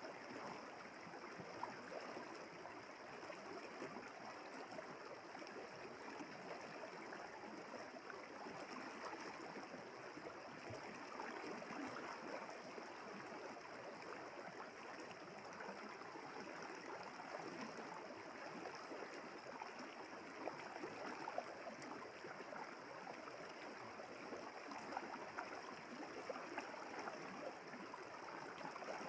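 River water flowing steadily with a continuous babbling rush.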